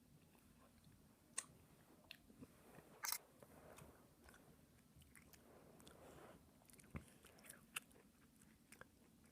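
Tangerine being bitten and chewed close up: soft, wet mouth sounds with scattered sharp clicks of bites. The loudest comes about three seconds in, and a few more follow near the end.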